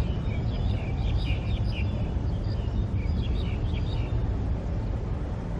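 Distant, steady low rumble of a Boeing 777 freighter's jet engines as it decelerates along the runway after landing, with birds chirping repeatedly over it.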